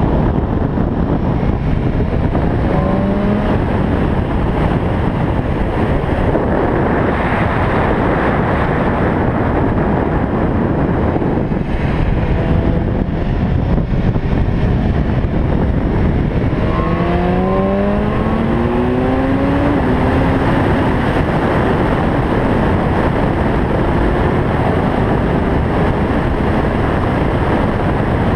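Motorcycle at speed on a race track, heard from an onboard camera: steady wind noise buffets the microphone, and the bike's engine rises in pitch as it accelerates, briefly a few seconds in and again, longer and stronger, a little past halfway.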